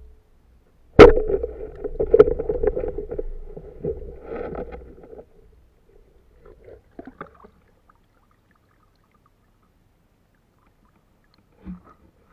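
A homemade spear gun fires underwater: a sharp crack about a second in as the spear hits a crab, followed by a few seconds of churning, bubbling water noise that fades out. After that it is mostly quiet with a few faint clicks, and a thump near the end.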